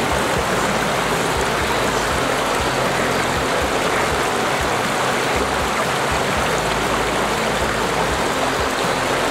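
Fast, shallow water of a river riffle rushing steadily over rocks, a close, full wash of moving water.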